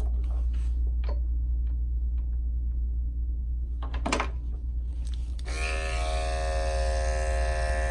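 Andis five-speed electric dog clipper with a #40 blade running with a steady low buzz. A little over five seconds in, the buzz turns brighter and fuller and holds that way.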